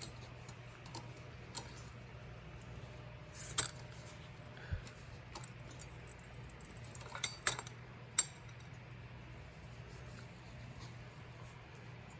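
Scattered light clicks and clinks of ceiling fan parts being handled while they are cleaned, over a steady low hum.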